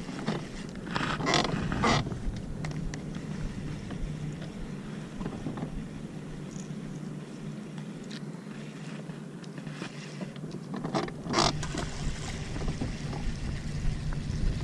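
Steady low hum on a small fishing boat, with a few sharp knocks of handling between one and two seconds in and again about eleven seconds in.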